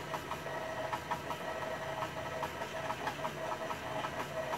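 KitchenAid stand mixer running with its wire whisk, beating buttercream frosting: a steady motor whir with light regular ticking. The frosting is still too crumbly.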